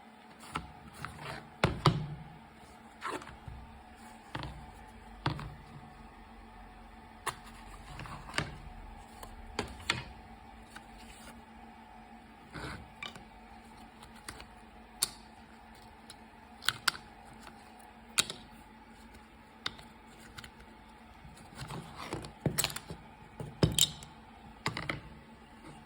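Irregular clicks and knocks of small parts being handled and set down, some sharp and loud, over a faint steady hum.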